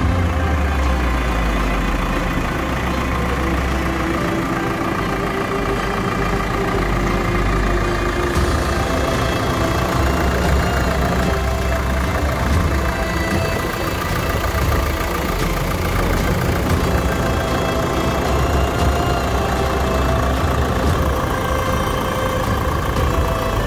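JCB 4CX Stage V backhoe loader's turbocharged four-cylinder diesel engine idling steadily.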